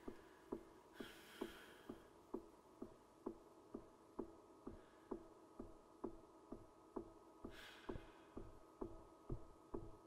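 Faint, even ticking like a clock, about two ticks a second, over a low steady hum. Two soft breathy rushes of noise come about a second in and again past seven seconds.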